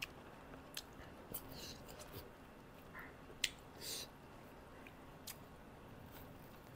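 Quiet eating sounds close to the microphone: scattered wet mouth clicks and smacks of chewing with the mouth, and fingers picking at rice and pork on banana leaves, about eight short clicks in all, the sharpest about three and a half seconds in.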